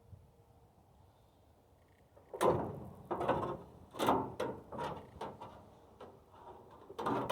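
Band sawmill blade being worked loose and pulled off its wheels, which are gummed with rubber from a broken drive belt. A string of sharp metal clanks and scrapes begins about two seconds in, some nine or ten over five seconds.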